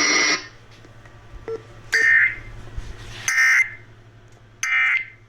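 NOAA Weather Radio end-of-message SAME data tones: three short, raspy digital bursts a little over a second apart, the code that closes an emergency alert broadcast.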